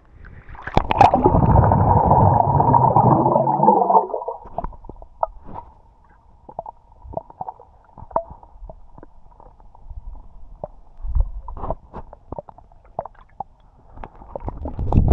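Swimming-pool water heard from under the surface: a loud churning rush of bubbles for about three seconds as the microphone goes under, then a muffled underwater sound with a faint steady hum and scattered small clicks and knocks. It swells again near the end.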